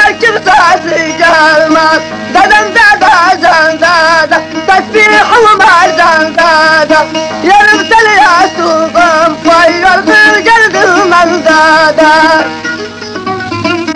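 Middle Eastern song: a wavering, ornamented melody line over string accompaniment. About twelve and a half seconds in, the full sound drops away and a quieter plucked-string part carries on.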